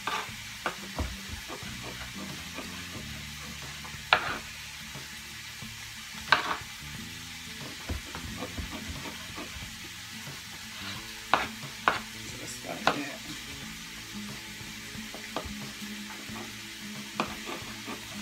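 Steady sizzling of onions frying in a skillet, with a knife slicing mushrooms on a plastic cutting board: a few sharp knocks of the blade on the board at irregular intervals, loudest about 4 and 6 seconds in and a cluster around 11 to 13 seconds.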